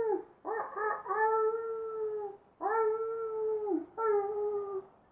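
A person imitating a wolf with their voice: three long "awoo" howls in a row, each held at a steady pitch and then dropping off at the end.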